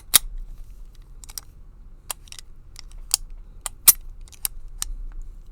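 Irregular sharp metal clicks and clacks from handling a large prison-style padlock and its key, about a dozen, the loudest near the start and about three and four seconds in.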